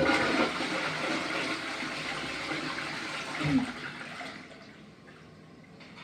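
Rushing water starting suddenly, with a brief louder surge about three and a half seconds in, then dying away.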